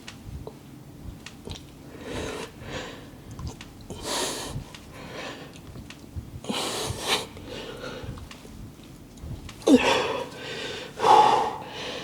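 A man breathing hard under exertion, forceful hissing exhales about every two to three seconds as he strains through repetitions, the loudest near the end.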